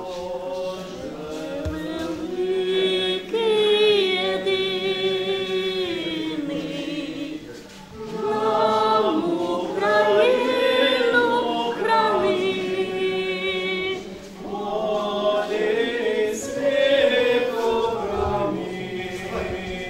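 A group of voices singing a hymn unaccompanied, in three long sustained phrases with short breaths about eight and fourteen seconds in.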